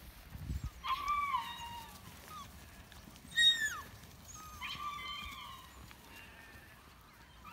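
High-pitched animal calls, three of them about two seconds apart, each under a second long; the middle one is the loudest and slides down in pitch.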